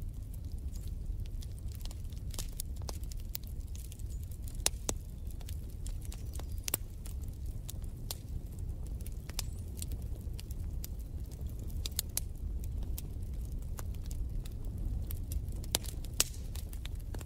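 Log fire crackling: irregular sharp pops and snaps over a steady low rumble.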